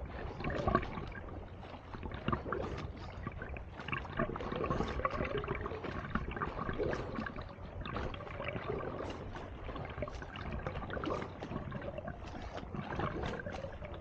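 Sea water splashing and sloshing close to a camera held at the surface, from a swimmer's arm strokes and kicks a few feet away. It is an irregular run of small splashes with no steady rhythm.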